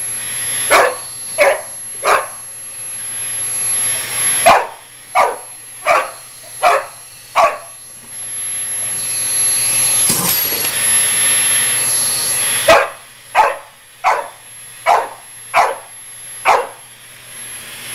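A puppy barking repeatedly at a running vacuum cleaner, in three runs of sharp barks with a long break in the middle. Under the barks the vacuum's motor runs with a steady hiss and a high whine, which grows louder during the break.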